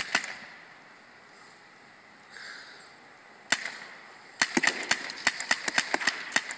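Paintball marker firing sharp pops: two shots at the start, a single shot about three and a half seconds in, then a rapid string of about ten shots over the last two seconds. A short hiss comes midway.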